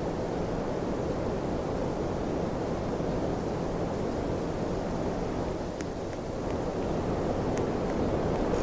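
Steady rushing air noise of a fan running, with a faint low hum under it and two faint ticks in the second half.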